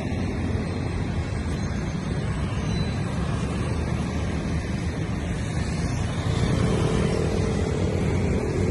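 Light road traffic: motorcycles and a car passing over a steady low rumble, with an engine note that grows a little louder about six and a half seconds in.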